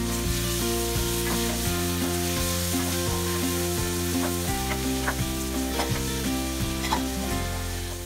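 Kimchi, onion and diced meat sizzling in a hot nonstick frying pan as a wooden spatula stirs them, with scattered light scrapes and taps of the spatula on the pan. Soft background music with held notes plays underneath.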